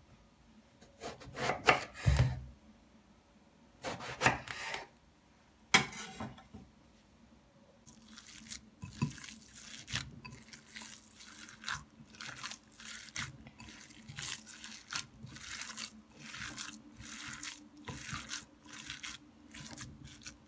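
A kitchen knife cutting through eggplant onto a wooden cutting board, a few separate cuts in the first six seconds. From about eight seconds in, hands knead raw ground meat with chopped onion in a glass bowl, a repeated squish one to two times a second.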